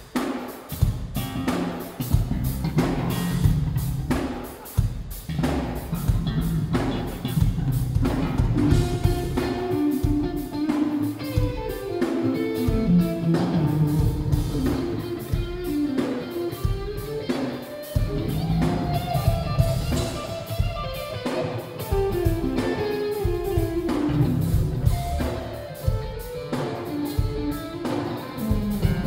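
Live instrumental rock: electric guitars playing melodic lines over a drum kit with regular kick and cymbal hits. Recorded in mono on a Nokia Lumia 920 smartphone microphone, with a muffled sound and muddy bass.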